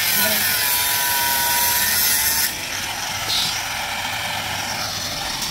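Angle grinder cutting steel rebar: a loud, hissing cut with a motor whine that sags in pitch as it takes the load. About two and a half seconds in the cut eases and the grinder runs on more quietly.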